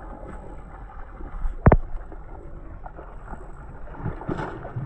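Water slopping and splashing around the boat with wind on the microphone, as a hooked fish thrashes at the surface. A single sharp knock a little under two seconds in.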